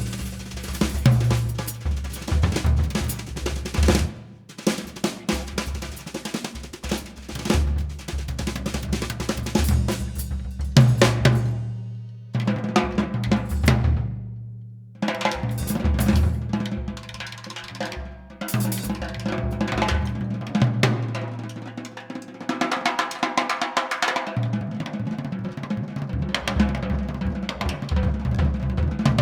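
Background music with a busy drum-kit beat over sustained bass notes, dropping out briefly about halfway.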